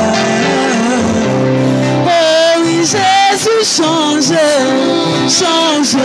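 A woman singing a French gospel worship song through a microphone, with wavering held notes, over live electronic keyboard accompaniment.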